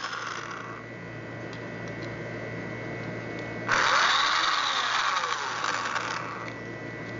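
Electric drill driving the latch bolt's screws into a door edge, in two runs: one winding down about a second in, then another lasting about two and a half seconds from near the middle, its speed rising and falling.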